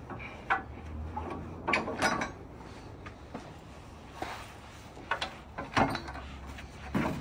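Scattered metallic clunks and clicks as a log clamp on the bandsaw mill's steel bed is unscrewed and the bed is handled, with a few knocks spaced irregularly.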